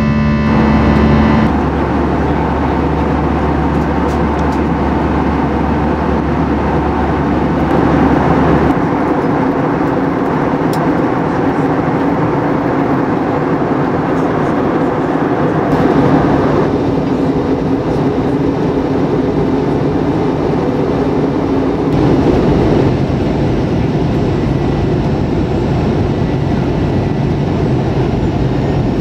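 Airbus A321 cabin noise heard from a window seat beside the wing: the steady noise of the jet engines and the airflow. The tone changes abruptly about four times as the footage jumps between stages of the flight.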